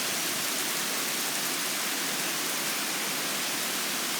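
Very heavy rain pouring down as a steady, even hiss during a severe thunderstorm.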